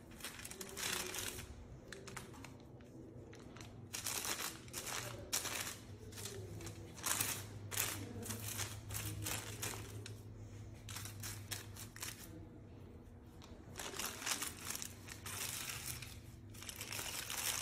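Aluminium hair-colouring foils crinkling in a string of short rustles as they are laid under slices of hair and folded up for foil highlights.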